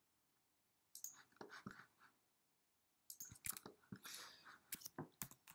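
Faint, scattered clicks of a computer mouse and keyboard keys, a few in the first half and a quicker run of them in the second half.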